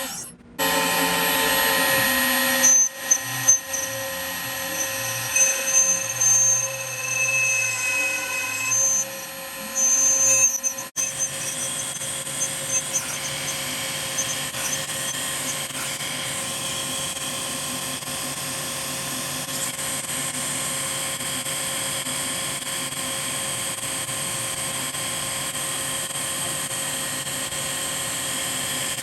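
Woodworking power tools in several short clips with abrupt cuts, then a power tool running steadily with a constant whine for the rest of the time.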